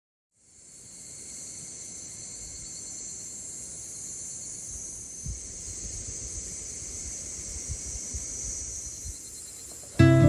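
Insects chirring in a steady, high-pitched chorus that fades in about half a second in, with a few faint low thumps. Acoustic guitar music comes in right at the end.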